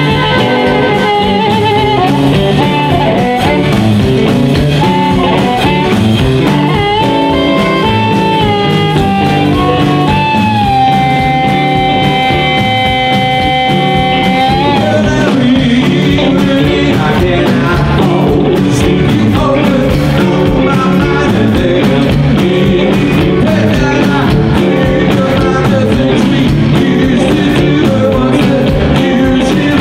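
Live blues band with amplified harmonica, electric guitars, drums and upright bass. The harmonica plays a solo of bent notes and holds one long note about halfway through, and after that the singing comes back in over the band.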